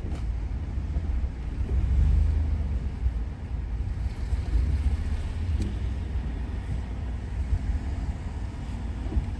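Low, steady rumble of a car, with a couple of faint knocks in the second half.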